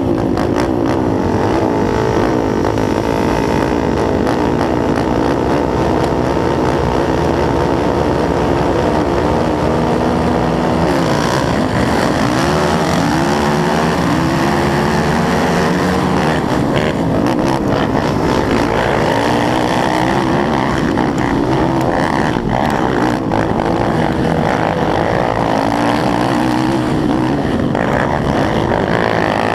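Racing ATV engines, including a Yamaha YFZ450R's single-cylinder four-stroke, running at high revs, with several engines heard at once. After about ten seconds the pitch starts climbing and dropping over and over as the quads accelerate and shift.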